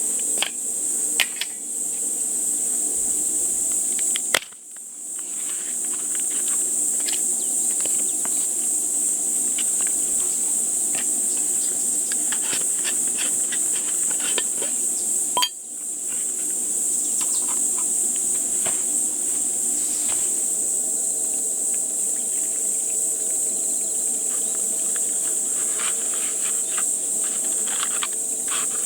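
Steady high-pitched insect chorus, with scattered light clicks and knocks over it. The chorus cuts off and resumes twice, about four seconds in and again about fifteen seconds in.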